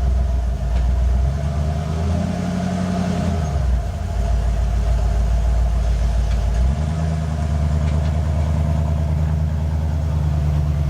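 A motor running steadily with a low hum whose pitch shifts a few times.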